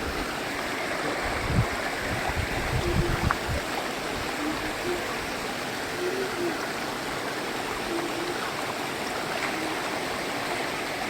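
Steady rush of falling and flowing water from a waterfall. Low thumps on the microphone in the first few seconds.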